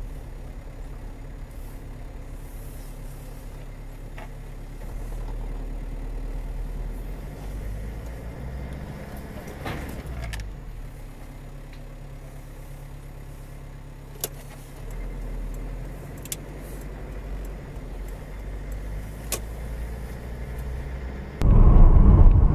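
Low, steady engine and road rumble from inside a moving car, with a few faint clicks. About a second before the end it cuts to much louder road and wind noise.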